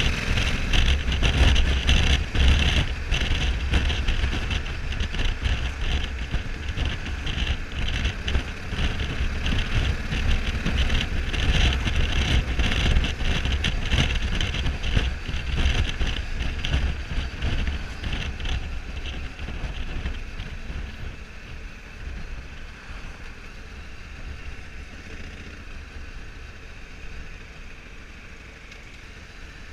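Honda Africa Twin 1100's parallel-twin engine running at cruising speed under heavy wind rush on the microphone. Both ease off from about two-thirds of the way through as the bike slows down.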